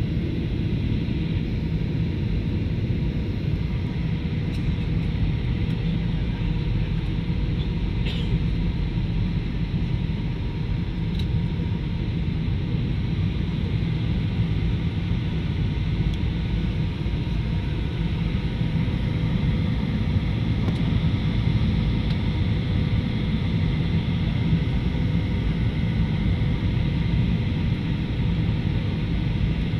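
Steady jet airliner cabin noise on the landing approach: a constant rumble of engine and airflow, with a faint steady hum running through it.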